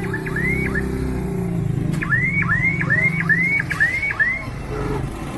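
A vehicle's electronic alarm chirps in short, quickly rising whoops: two near the start, then a run of about six at roughly two a second. An engine runs close by underneath and fades out about three and a half seconds in.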